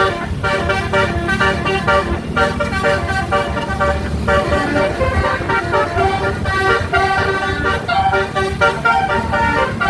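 Indonesian bus telolet horn, a set of tuned air horns, playing a melody of changing notes, several tones sounding at once, with a low rumble underneath.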